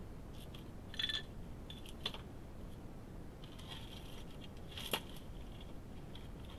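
Badger feeding at a dish: a few short crunching clicks, about a second in, again at two seconds, and a sharper one near five seconds, over a faint steady hiss.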